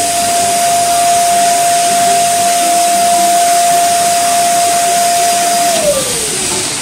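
Electric balloon blower running: a steady high motor whine over rushing air. Near the end the whine drops in pitch and fades as the motor slows down.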